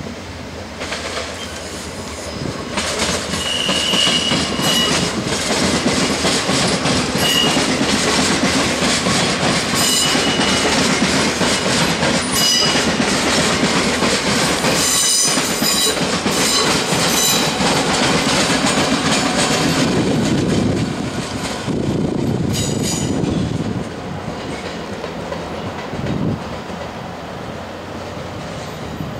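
Double-deck electric passenger train running through station pointwork: its wheels clack over rail joints and switches, with short high squeals from the wheels on the curves. It is loud from about 3 s in until about 21 s, then dies down.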